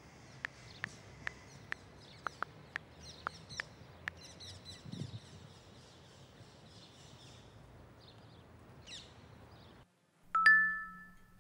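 Smartphone keyboard clicking as someone types, about two taps a second, with birds chirping in the background. Near the end a sudden, loud two-tone phone notification chime for an incoming WhatsApp message rings out and fades.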